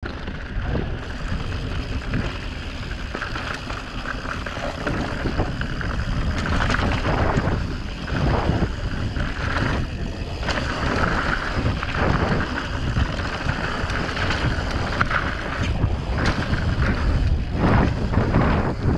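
Mountain bike rolling fast down a dirt singletrack: a steady rumble of knobby tyres on packed dirt under wind buffeting the action camera's microphone, with scattered rattles and knocks from the bike over bumps, more of them near the end.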